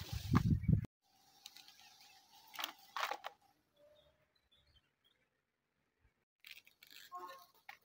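Wind buffeting the microphone, cut off abruptly about a second in, then near silence with a few faint, brief sounds.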